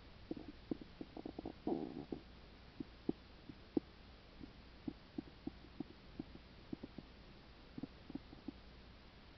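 Stomach and bowel sounds: irregular short pops and clicks, with a brief gurgle a little under two seconds in. The uploader attributes them to a stomach ulcer.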